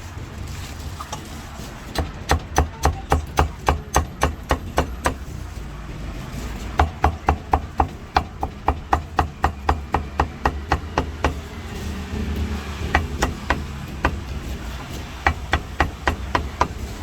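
Cleaver chopping roast meat in runs of quick, even strokes, about four a second, with short pauses between the runs.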